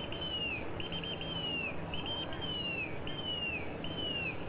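A high whistled call repeated five times about a second apart, each a short flutter followed by a falling glide, over a steady low rumble.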